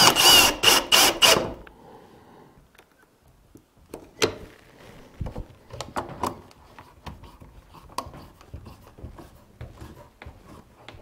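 Cordless drill driving a screw into a wooden cleat, running for about a second and a half and then stopping. After that come scattered light clicks and knocks as one-handed bar clamps are set on the cleats and tightened.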